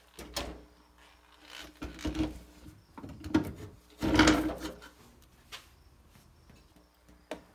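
Metal clunks and scraping as a power brake booster with its master cylinder is handled and set against a sheet-metal firewall plate. There are a few separate knocks, the loudest and longest rattle about four seconds in, and one more short knock near the end.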